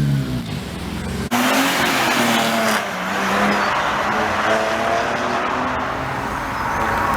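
Modified car's engine: the revs fall away, then about a second in the throttle opens with a sudden loud rush of exhaust noise as the car accelerates hard.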